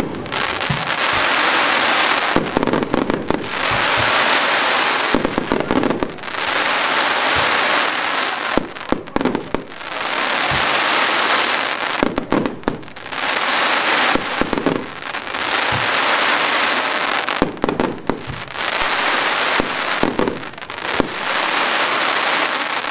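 A 100-shot fan-shaped fireworks cake (AP Feuerwerk 40-51) firing. Clusters of sharp launch reports are each followed by a long, dense crackle of bursting stars, repeating about every three seconds.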